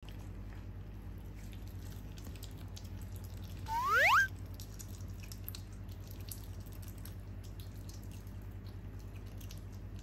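Asian small-clawed otter eating blanched sea bream, with faint soft chewing ticks over a steady low hum. About four seconds in comes a short rising squeak, the loudest sound.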